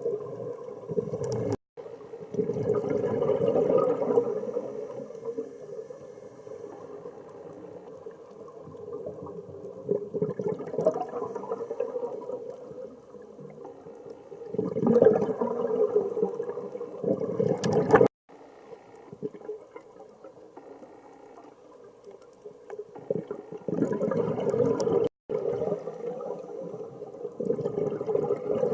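Scuba diver exhaling through a regulator underwater: three long bubbling surges of exhaled air, with quieter water noise and a steady low hum between them.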